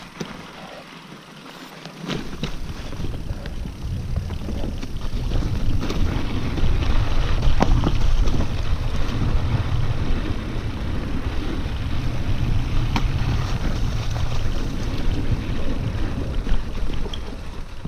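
Wind buffeting a GoPro camera's microphone while riding a mountain bike down a trail: a heavy low rumble that builds about two seconds in and stays strong, with a few sharp knocks from the bike over rough ground.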